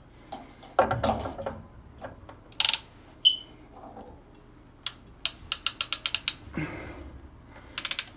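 Ratcheting PEX crimp tool being worked onto a crimp ring, giving a quick run of sharp clicks a little past the middle, among handling knocks and rustles.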